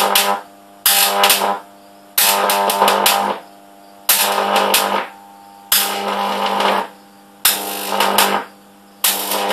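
High-voltage AC arc from a home-made stacked microwave-oven-transformer supply at about 10,000 volts, flaring in loud buzzing, crackling bursts about a second long, seven times, with short quiet gaps as the arc is struck and breaks.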